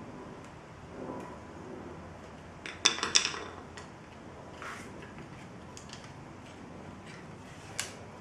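Clicks and light metal-and-plastic clatter of hands and tools working a door lock actuator loose inside a car door: a quick cluster of sharp clicks about three seconds in, then a few lighter clicks, one more near the end.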